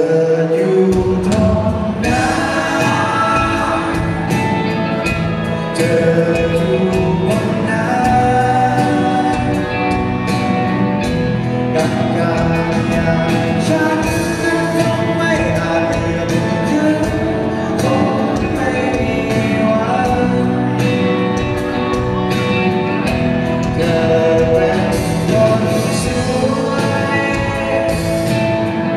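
Live band performing a song: singing over guitar and a steady beat.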